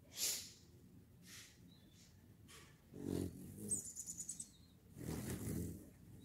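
Hummingbirds at a feeder: a rapid, high-pitched chittering call a little before the middle and a few short high chirps, among several rushing bursts of noise, the loudest about halfway and near the end.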